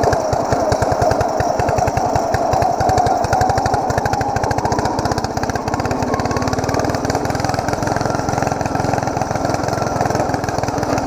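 Ariens YT11 lawn tractor's engine running steadily under way in first gear, high range, with a rapid, even firing beat that smooths out about six seconds in.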